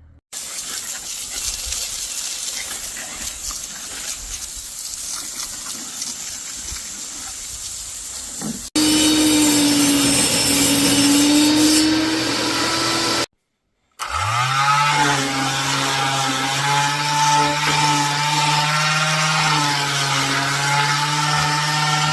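Power tools running in three separate cut-together clips: first a steady hissing scrub with no clear pitch, then a motor with a steady whine over the hiss, and after a brief break another motor running at a lower, steady pitch.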